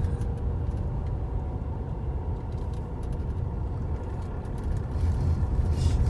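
A vehicle's engine runs as it creeps slowly along, heard from inside the cabin as a steady low rumble with a faint steady hum above it.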